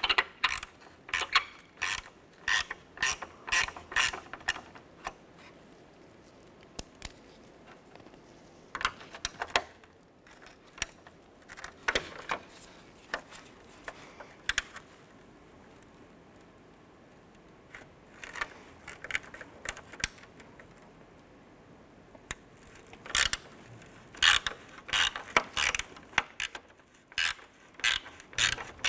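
Hand ratchet with a 3/8-inch socket on an extension clicking in quick runs as it backs off small nuts on a plastic grille. The runs come in spurts with quieter pauses between them, the densest near the start.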